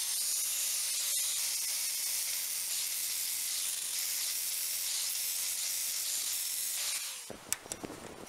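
Handheld power tool worked at a steel bicycle hub: a motor whine rises as it spins up, holds over a steady high hiss, and winds down about seven seconds in.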